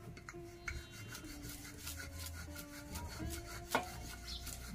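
Wooden rolling pin rolling out roti dough on a board, a faint repeated rubbing with light clacks of the pin and one sharper click near the end.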